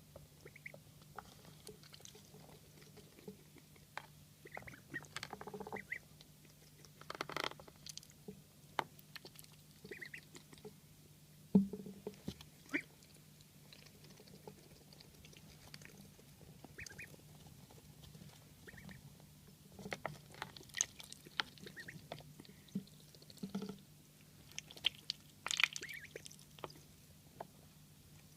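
Duckling wheezing: short, scattered wheezy breath sounds at irregular intervals, with a louder knock near the middle.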